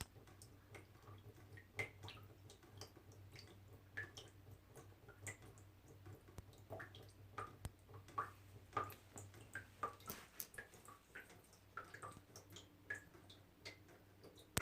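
Small water droplets dripping steadily at an irregular pace, several a second. Each drop is a short, faint plink at a slightly different pitch.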